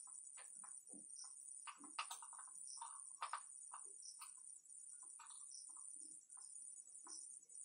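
Faint background ambience: scattered short chirps and clicks over a steady high-pitched whine.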